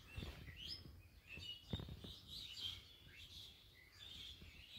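Faint chirping of small birds: scattered short calls and little pitch glides, with a soft bump about two seconds in.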